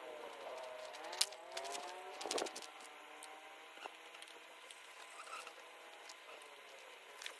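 Faint engine sound whose pitch slides up and down over the first two and a half seconds, then settles into a faint steady hum. Scattered sharp clicks and knocks of hand tools on metal as the ATV's carburetor is being taken off, the loudest about a second in and about two seconds in.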